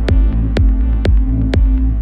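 Minimal techno instrumental track: a steady beat about twice a second over a sustained deep synth bass and held synth chords.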